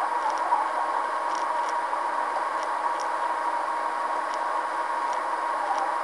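Steady noise of a moving car heard from inside the cabin, with a faint high tick every second or so at uneven spacing.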